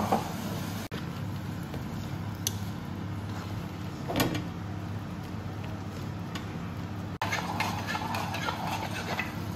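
A steady low hum with a couple of brief clacks of a slotted spatula against the wok as the stir-fry of chicken and vegetables is stirred, one right at the start and one about four seconds in.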